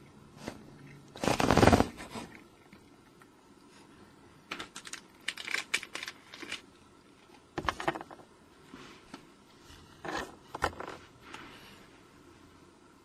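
Scattered light clicks, taps and scrapes on cardboard and a corrugated plastic sheet, in several short clusters with a louder scrape about a second and a half in, as a cat paws at the edge of a box hole and a small dry cat treat is set down on the sheet.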